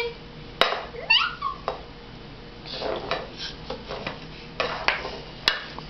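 A baby's short rising squeal, with a couple of sharp knocks and some scuffing as he crawls with a plastic recorder on the floor.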